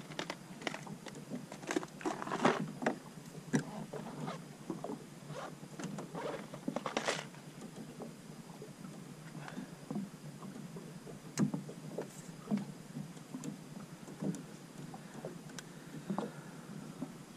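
Small waves slapping and knocking irregularly against the aluminium hull of a tinny drifting on calm sea, over a steady hiss, with a louder slap about seven seconds in.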